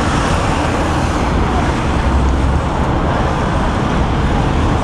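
Steady city street traffic noise: a continuous low rumble of passing road vehicles with no single event standing out.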